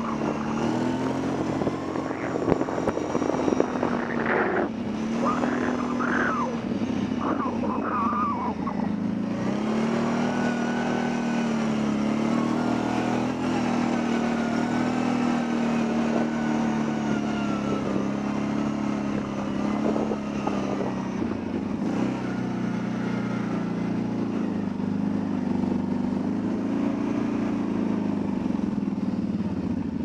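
Kawasaki Brute Force 750 ATV's V-twin engine running steadily while riding, its pitch rising and dipping gently with the throttle.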